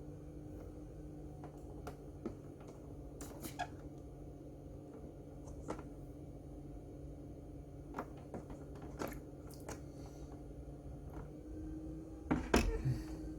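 Scattered small clicks and taps of hands working with tools and wiring, over a steady low hum that stops shortly before the end. A cluster of louder knocks comes near the end.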